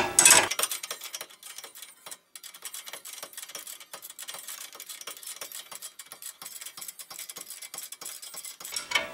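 Quick, even metallic clicking, several clicks a second, from an 18 mm box-end wrench ratcheting as it tightens the sway-bar end-link nut on the strut bracket.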